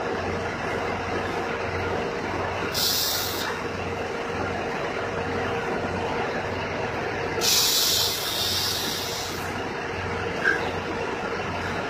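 Steady low rumble and hum of idling diesel trucks at a fuel island, broken twice by sharp hisses of truck air brakes, a short one about three seconds in and a longer one of about two seconds near the eight-second mark, with a small tick near the end.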